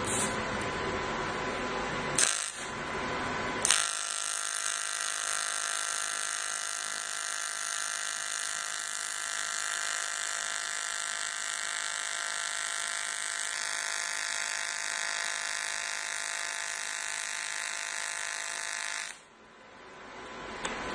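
DC TIG welding arc: a steady high-pitched buzzing whine that starts with a sharp click about four seconds in, shifts slightly in tone partway through and cuts off abruptly near the end. A couple of sharp clicks come just before the arc starts.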